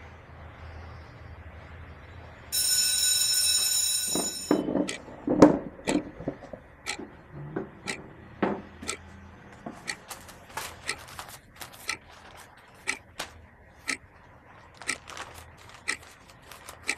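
A loud, steady, high-pitched ringing tone sounds for about a second and a half, followed by a few heavier knocks and then a run of sharp, irregular ticking clicks, about two or three a second.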